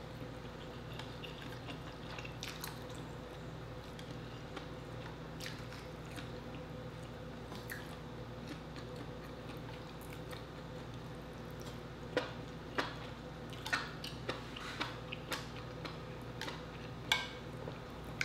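Close-up eating sounds of a person chewing instant noodles: quiet wet chewing and soft mouth ticks, then from about twelve seconds in a run of sharp clicks and wet smacks as the noodles are picked up and eaten with chopsticks. A steady low hum runs underneath.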